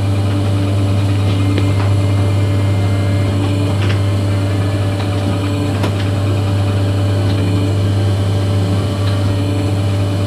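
A steady low hum, like a motor or electrical hum, runs at an even level throughout. A few faint clicks stand out about two, four and six seconds in.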